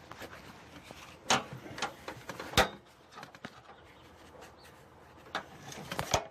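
A few sharp clicks and knocks of hands handling hard objects, spaced irregularly, the loudest about two and a half seconds in.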